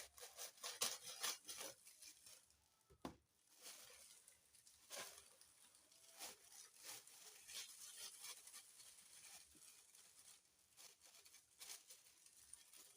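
Icing sugar being sifted through a mesh sieve: faint, irregular soft taps and rustles, several a second, as the sieve is shaken and tapped.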